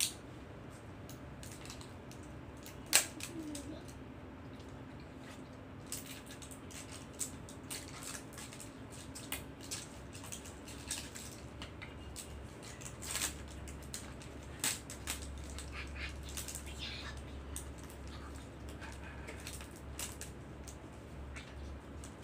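Plastic toy packaging being handled and opened, with scattered light crackles and clicks and one sharp click about three seconds in.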